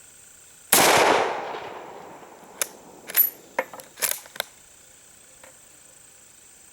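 A single rifle shot from a Zastava M48A Mauser bolt-action chambered in 8mm Mauser, about a second in, its report echoing away over a second or so. Then comes a quick run of sharp metallic clicks and clacks as the bolt is worked to eject the spent case and chamber the next round.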